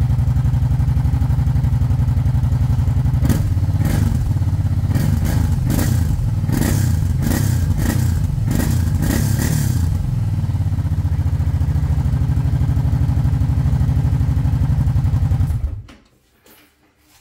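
Kawasaki Brute Force 750 ATV's V-twin running through its stock factory exhaust tip. It idles, gets a quick string of throttle blips for several seconds, settles back to idle, and shuts off about a second and a half before the end.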